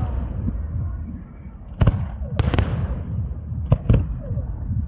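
Fireworks display: aerial shells bursting in a handful of sharp bangs, two close pairs about a second and a half apart, over a continuous low rumble of the display.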